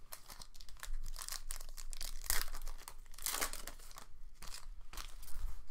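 Panini Select football card pack's plastic wrapper being torn open and crinkled by hand: a run of crackling rustles, with louder bursts about two and a half and three and a half seconds in.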